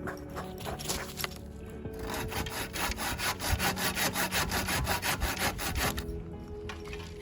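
Wood being sawn by hand: quick, even saw strokes starting about two seconds in and stopping about a second before the end.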